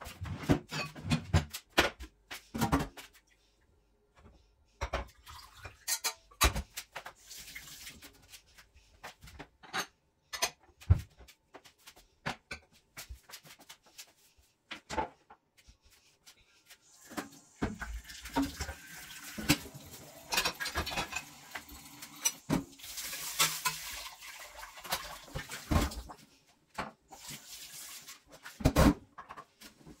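Dishes and kitchenware clinking and knocking at a sink, with water running from the tap for several seconds past the middle.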